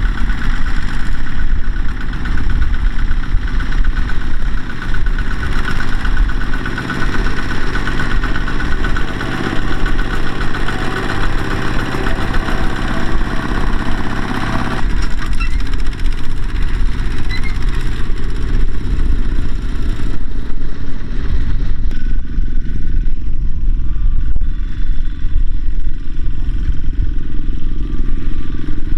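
Two-wheel walking tractors' single-cylinder diesel engines running steadily under load as they pull trailers of rice sacks across a soft field. The engine sound changes in character about halfway through and again a few seconds later.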